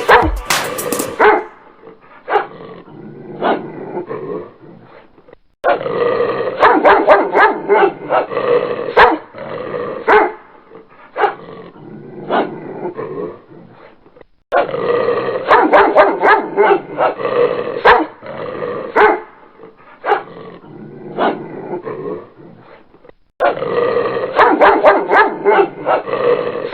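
Dog barking and growling, in loud stretches of rapid barks a few seconds long, with sparser single barks between them.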